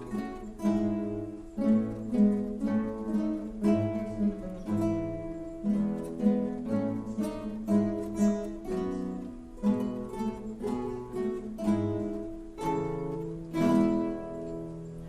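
Acoustic guitar playing an instrumental piece, plucked and strummed chords in a steady rhythm.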